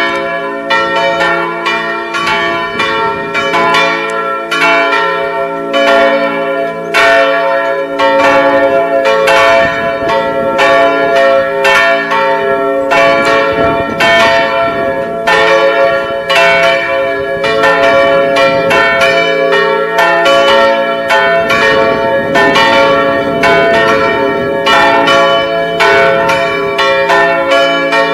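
Three church bells, one large and two smaller, swinging and ringing together in a full peal. Their strikes fall unevenly at about two a second and overlap over long-ringing tones.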